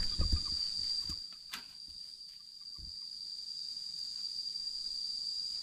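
Insects singing: one steady, high-pitched trill. There are a few low thumps in the first half second and a single sharp click about a second and a half in.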